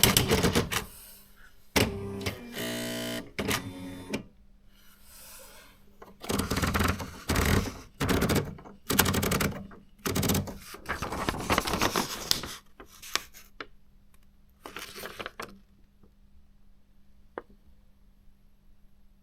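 Panasonic R540 electronic typewriter: the last keystrokes, then a short motorised whirr about two to four seconds in. Several roughly one-second rushing, rubbing sounds follow, then a few light clicks before it goes quiet.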